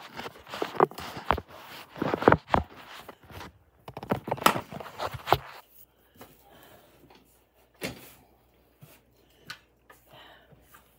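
Objects being handled and set down on a desk close to the microphone: a run of sharp knocks, clicks and rustling through the first half. After that it goes quiet, with only a few single taps.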